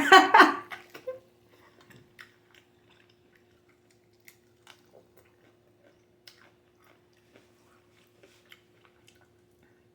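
Close-miked chewing and biting of a chicken leg in spicy sauce: soft, scattered wet clicks and smacks, faint against a steady low hum. It follows a brief loud vocal outburst in the first second.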